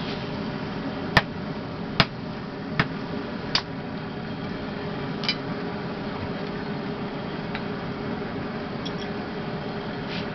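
Blacksmith's hammer striking a sickle blade on metal: four sharp blows about a second apart, then a fifth lighter one, each with a short high ring, over a steady low hum.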